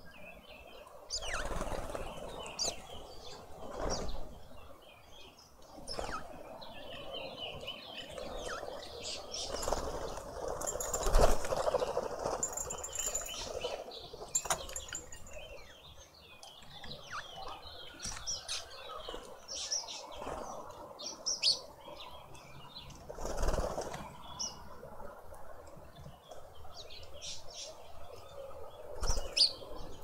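Small birds chirping at a seed feeder, with several bursts of wing flapping, the loudest about eleven seconds in.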